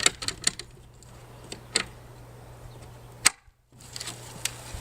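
Several sharp clicks over a steady low hum, most of them in the first two seconds, with one loud click a little past the middle followed by a brief dropout to silence.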